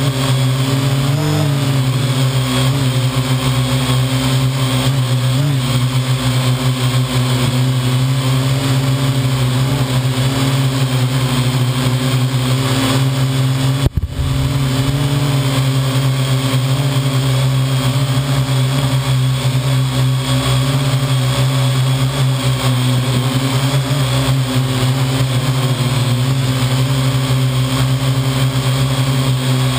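Parrot AR.Drone quadcopter's four motors and propellers whirring steadily, heard close up from a camera mounted on the drone. The sound cuts out for an instant about halfway through.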